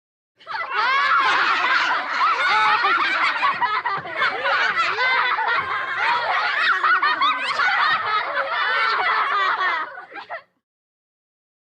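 A group of children laughing together, many high voices overlapping in a continuous stream of giggles, for about ten seconds; it starts half a second in and stops abruptly near the end.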